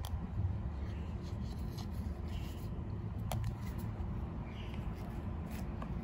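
Hands handling a wire and plastic door-trim parts: faint rubbing with a few light clicks, the clearest about three seconds in, over a steady low hum.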